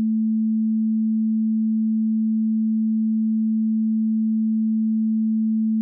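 A pure 220 Hz sine-wave test tone held steady at one pitch and level, played identically and in phase in both stereo channels.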